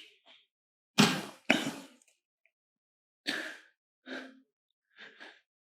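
A few short scuffs and knocks from hands working cord around bamboo poles, the loudest two about a second in, then fainter ones.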